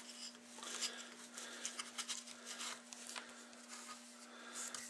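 Faint scratching and light ticks of small engine parts being handled and poked at, over a steady faint hum.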